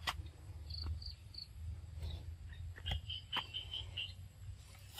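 Insects chirping in short runs of high, evenly spaced pulses, over a low steady hum, with a few sharp clicks.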